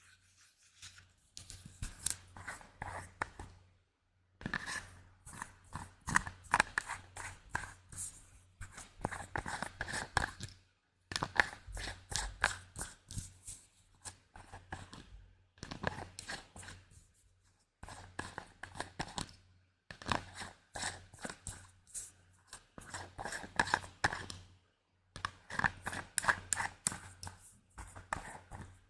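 Close-miked ASMR tapping and clicking on objects: rapid crisp taps in bursts of a few seconds, broken by short pauses.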